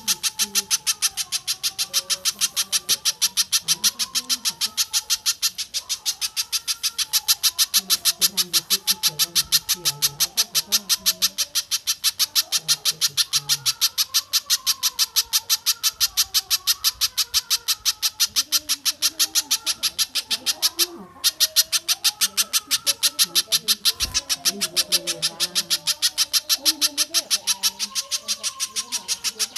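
A recorded bird call: a fast, unbroken run of sharp, evenly repeated high notes, several a second, with one short pause about three quarters of the way through.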